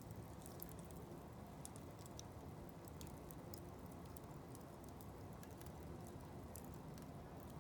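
Wood blocks burning in a fire basket, crackling softly with scattered small pops over a low, steady rush of flame.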